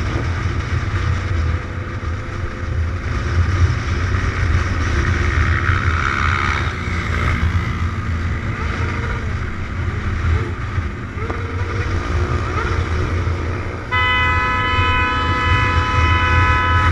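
A motorcycle engine running at road speed, with wind rushing over the microphone. Near the end a horn sounds and is held steadily for about three seconds.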